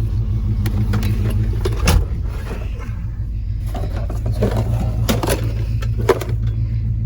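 Truck's swapped-in GM LS V8 and road noise heard from inside the cab as a steady low drone, with scattered clicks and rattles, the sharpest knocks about two seconds in and again near six seconds.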